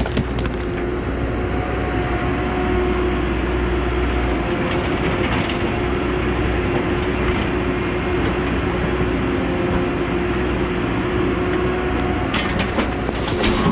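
Cat 314E LCR excavator's diesel engine and hydraulics running steadily under work as the machine dumps, swings and returns, with a low rumble that changes pitch about four seconds in. A few short knocks and rock clatters come near the end.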